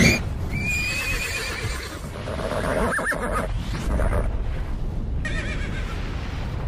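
Horse whinnying: wavering neighs about a second in and again near the end, with a shorter call in between, over a steady low rumble.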